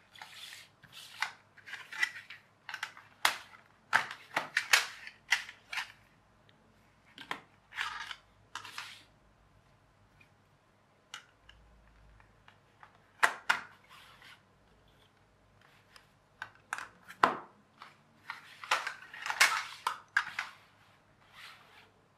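Stiff plastic jigsaw-style toy track pieces being handled on a table, slid together and pressed into place: clusters of sharp clicks and taps with quiet pauses between.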